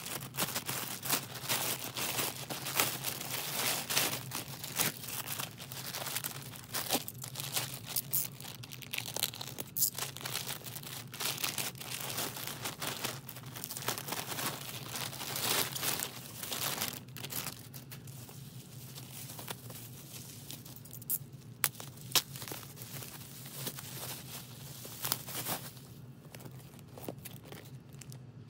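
Plastic poly mailer bags being pulled and torn open, the plastic packaging crinkling and crackling. The handling is busy for the first half, then quieter with a few sharp crackles.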